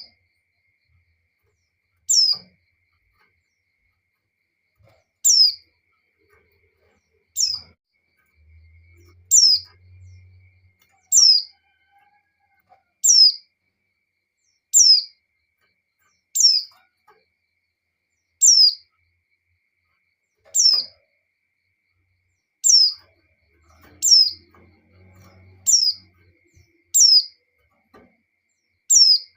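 Female white-eye (pleci) giving its breeding-condition call to attract a male: a short, high call that falls in pitch, repeated about every two seconds, around fifteen times.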